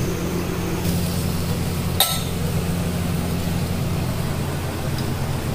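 Kitchen exhaust fan running with a steady hum, and one sharp clink about two seconds in.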